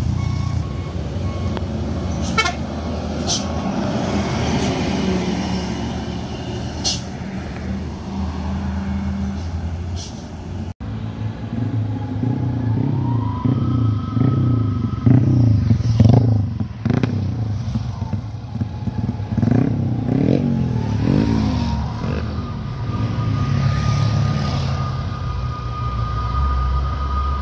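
Heavy diesel truck engines running on the road, with the engine note rising and falling in the second half as they rev; the sound changes abruptly about eleven seconds in.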